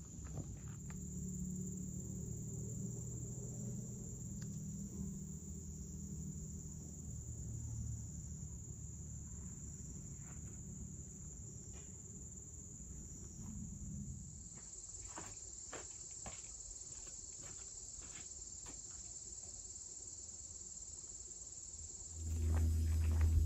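Insect chorus: a steady, high-pitched trill running through. A low rumble sits under it for the first half, scattered short clicks and ticks follow, and a louder low rumble comes in near the end.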